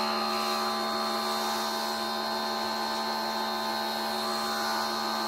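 Teande electric pressure washer running steadily under load as the wand sprays water onto the car: an even motor-and-pump hum with a clear steady tone, over the high hiss of the water jet.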